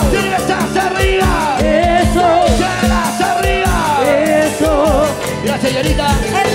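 Live band dance music: a lead melody gliding up and down over a steady drum beat and bass.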